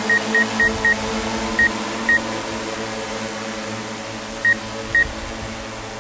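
A multirotor agricultural spraying drone's rotors make a steady, many-toned hum that slowly fades as the drone flies away. Short high electronic beeps sound over it: four quick ones at the start, then four more spaced out.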